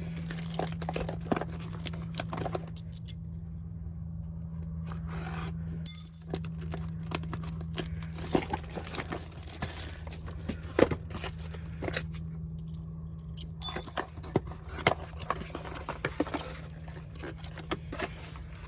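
Carburetor kit parts being unpacked and handled: plastic packaging rustles and crinkles, with irregular light clicks and clinks of small parts. There are louder crinkling bursts about six seconds in and again near fourteen seconds.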